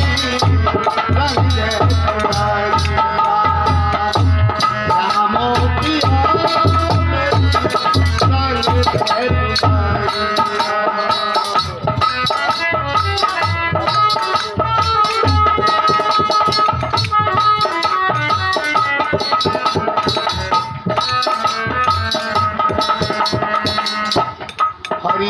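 Instrumental passage of a Hindi devotional bhajan: a hand drum beats a steady rhythm under a sustained melodic instrument. The drum strokes are strongest in the first half and thin out later.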